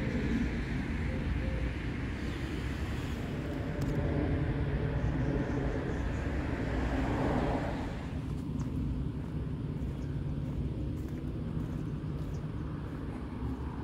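Steady low engine rumble of distant motor traffic, building to a peak about seven seconds in and falling away suddenly about a second later.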